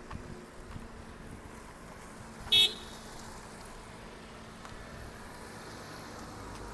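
Quiet street ambience with a faint steady hum; about two and a half seconds in, a single short, loud vehicle horn toot.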